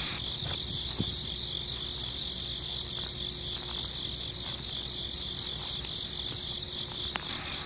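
Steady high-pitched insect trill, with a soft knock about a second in and a sharp click near the end.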